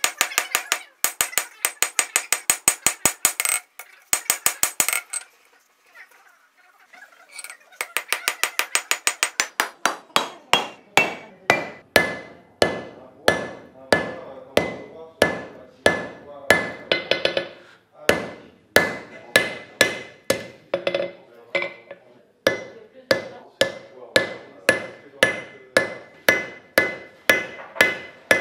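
Blacksmith's hand hammer striking a red-hot steel bar on an anvil. The strikes come in a rapid run for about five seconds, then a short pause, then another quick run. After that they settle into steady blows about two a second, each with a ringing tone from the anvil.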